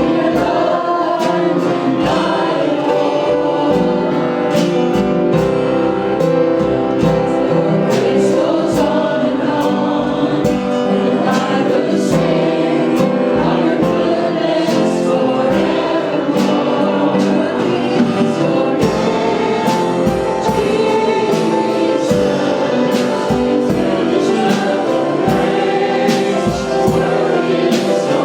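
Gospel choir singing over instrumental accompaniment with a steady beat.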